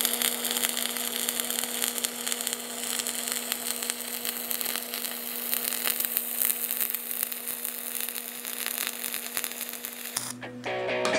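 Electric welding arc burning steadily: a dense crackle of quick clicks over a constant buzz. It stops about ten seconds in.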